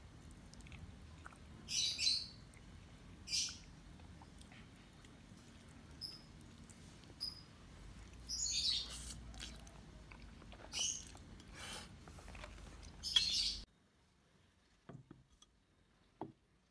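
A fork twirling and lifting sauce-coated spaghetti on a ceramic plate: a series of short, wet, hissy scrapes, several of them close together about two seconds in and again around eight to thirteen seconds in. Near the end the background drops away and only a few faint clicks remain.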